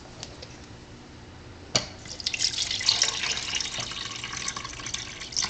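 Water poured from a plastic pitcher into a pod coffee brewer's reservoir. After a short knock about two seconds in, it splashes steadily.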